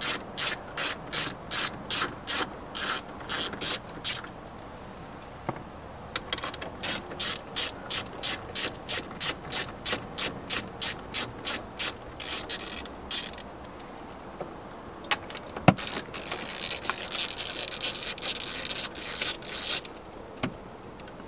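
Socket ratchet clicking in steady runs of about three clicks a second as nuts are backed off a truck's mirror mount. Later comes a single sharp knock, then a few seconds of rubbing and handling noise.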